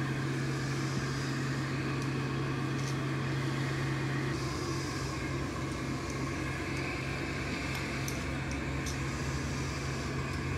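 Steady mechanical hum whose low tone drops away about four seconds in. Over it, faint scattered crackles come from a roller being worked over wet resin-soaked fiberglass cloth, popping trapped air bubbles out of the laminate.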